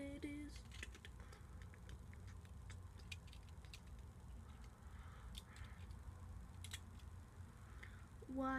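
Faint, scattered clicks and rattles of plastic Lego bricks being handled and pressed together, over a low steady background hum. A boy's voice sings a few held notes at the very start and again near the end, louder than the clicking.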